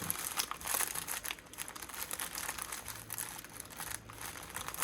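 Small plastic bags of diamond painting drills crinkling and rustling steadily as they are sorted through by hand, with many small crackles.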